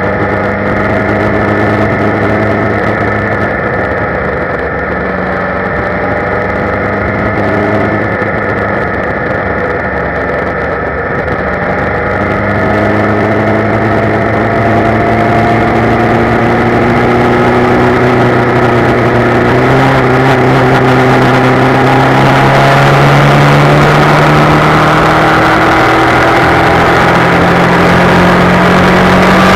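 Motorcycle engine running under way, its note climbing slowly with a few small steps as the bike gathers speed. Wind rush grows louder in the second half.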